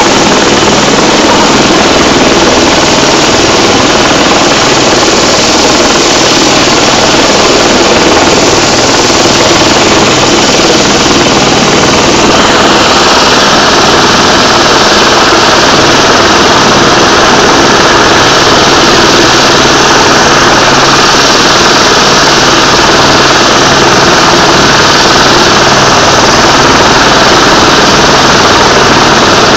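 Rescue helicopter hovering, its rotor and turbine engine running loud and steady; about twelve seconds in the sound turns brighter and more hissy.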